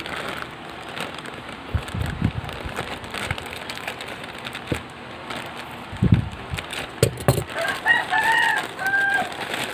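Plastic parcel packaging and bubble wrap rustling and crackling as it is torn open and handled, with a few dull knocks. Near the end a rooster crows in the background in a few held, arching notes.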